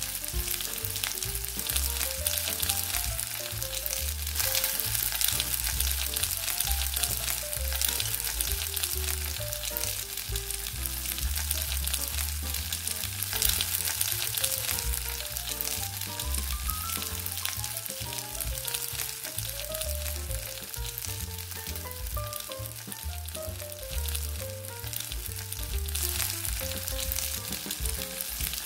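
Pancake batter of peanut butter and egg sizzling steadily in an oiled, preheated nonstick pan, a continuous fine crackle. Soft background music plays underneath.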